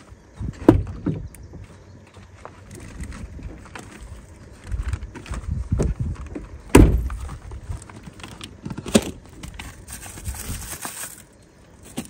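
Scattered knocks, thumps and rustling of things being handled while a small charcoal grill is got ready, with three louder knocks spread through and a brief hiss near the end.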